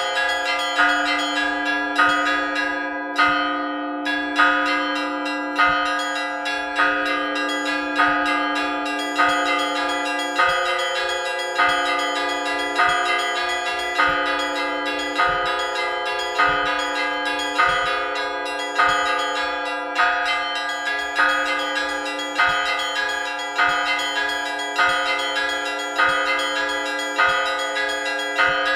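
Russian church bell peal (zvon): a bell struck steadily about once a second over a low, sustained bell tone, with small bells chiming quickly above. The small high bells drop out briefly about three seconds in.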